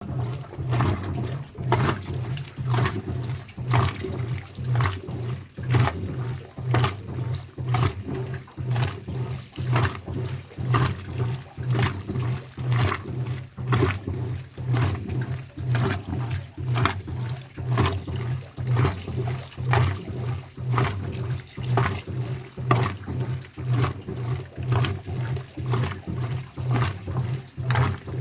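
Washing machine with a flywheel-driven transmission agitating in its wash cycle: a steady low motor hum under a regular 'chaca chaca' clacking, about once a second.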